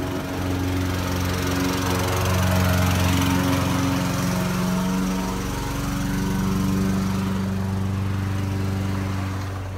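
Lawn mower engine running steadily, its loudness swelling and easing a little as it goes.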